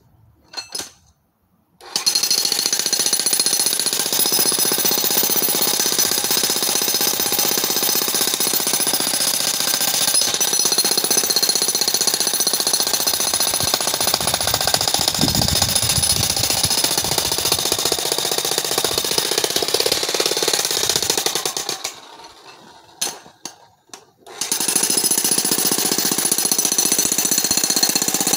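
Corded electric demolition hammer (breaker) pounding into rock. It starts about two seconds in and runs in a continuous rapid hammering, stops for about two seconds near the end, then starts again.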